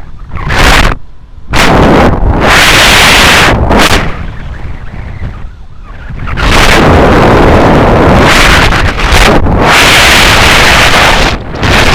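Strong wind blasting across the microphone in flight, loud enough to distort, in several gusts of one to three seconds with brief lulls between them.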